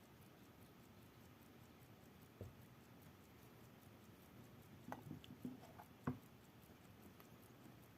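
Near silence: room tone with a few faint short clicks and knocks, one about two and a half seconds in and a small cluster around five to six seconds in.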